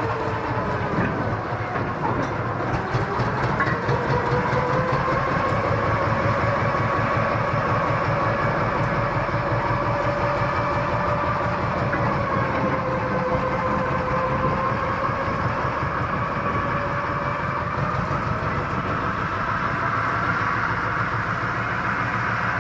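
Small diesel locomotive running, a rapid engine beat with a steady whine over it; the pitch dips about a second in, then slowly rises and falls.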